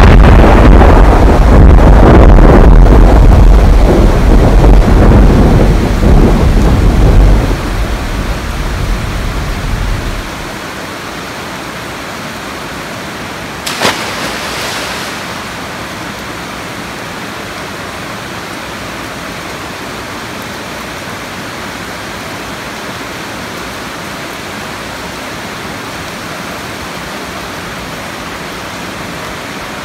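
Loud rolling thunder fades away over about ten seconds, leaving steady rain. There is a single brief sharp crack about fourteen seconds in.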